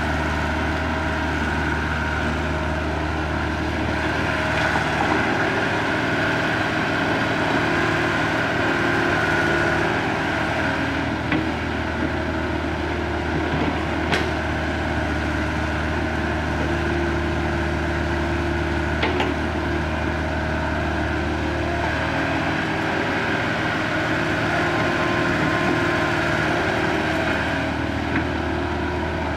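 Diesel engine of a small CAT crawler excavator running steadily as it digs and swings, its note changing a couple of times as the work load comes and goes. Two short sharp knocks, about halfway through and again a few seconds later.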